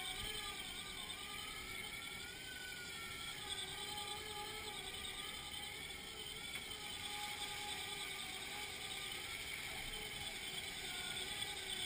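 Fire engine's engine and built-in fire pump running steadily, with a faint whine that drifts slightly up and down in pitch.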